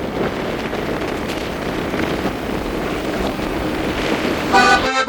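Steady rushing wind noise on the microphone. Music with a pitched instrument comes in near the end.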